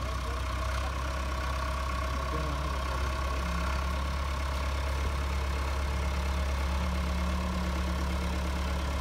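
YTO tractor's diesel engine running steadily under load as the tractor pushes soil with its front blade, growing slightly louder as it draws closer.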